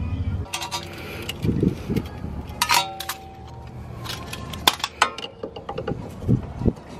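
Tools clinking on a coilover's steel threaded collar as a spanner wrench is fitted to it: a series of sharp metallic clicks and clinks. One clink about three seconds in rings on briefly.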